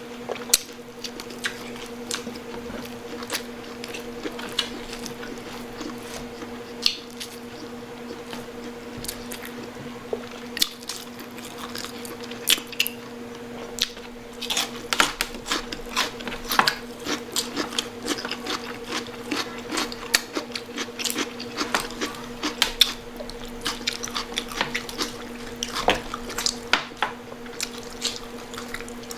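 Close-up chewing and biting of crispy pata, deep-cooked pork knuckle, with many short crunches and wet squishy mouth sounds, busier in the second half. A steady low hum runs underneath.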